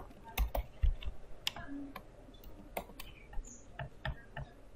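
Computer keyboard typing: irregular key clicks, a few of them louder thuds in the first second.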